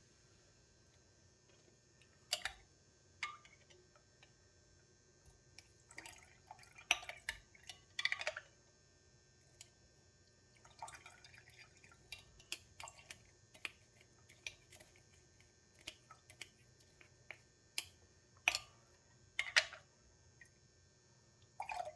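Irregular light taps and clicks of a kitchen strainer against its container, with liquid dripping, as chilli pieces are skimmed off the top of a spiced yogurt drink.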